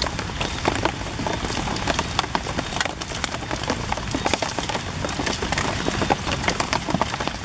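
Rain falling on leaves and grass, a steady hiss with many irregular sharp drop hits close by.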